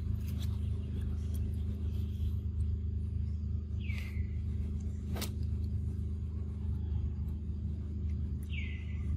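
Steady low rumble throughout, with a short high call that slides down in pitch and levels off, heard twice, about four seconds in and again near the end, and a single sharp click around five seconds in.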